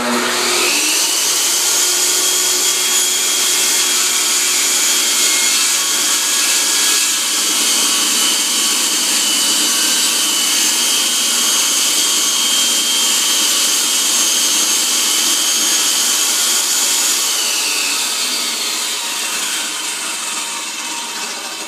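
DeWalt DW744X 10-inch table saw with a Diablo 60-tooth blade switched on and running with a steady whine, its blade being raised up through a new zero-clearance insert to cut the insert's blade slot. About 17 seconds in it is switched off, and the whine falls as the blade spins down.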